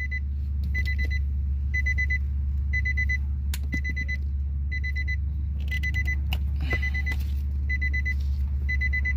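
A vehicle's electronic warning chime gives a short, high beep that repeats evenly, a little faster than once a second, over a steady low hum. A few sharp clicks from wire cutters or a crimper on speaker wire fall after the middle.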